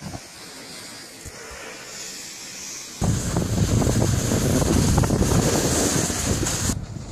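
Wind rushing over the microphone together with the hiss of snowboards sliding on packed snow. It jumps suddenly much louder about three seconds in, with a heavy low buffeting, and cuts off abruptly near the end.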